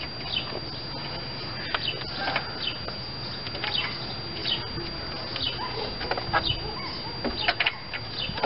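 Small birds chirping over a steady low hum, with a few light clicks from handling the spindle nut on the truck's front wheel hub.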